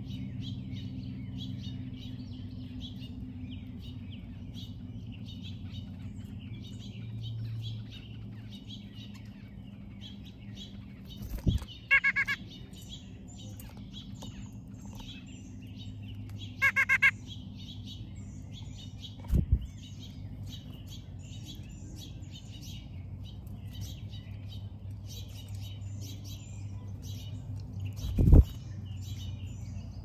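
Wild birds chirping and singing over a steady low hum, with two short, louder calls about twelve and seventeen seconds in. Three low thumps break in, the loudest near the end.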